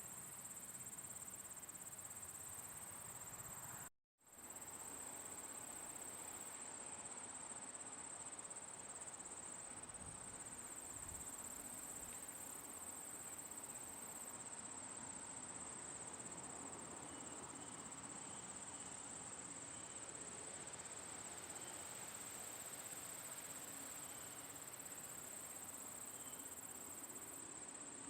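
Crickets chirping in a steady, continuous high trill over a low hiss of outdoor background. The sound cuts out completely for a fraction of a second about four seconds in, then resumes; a few faint short chirps from another caller come in over the second half.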